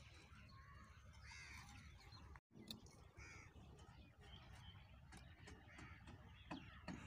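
Faint crow caws, a few spaced a couple of seconds apart, over near-silent outdoor background.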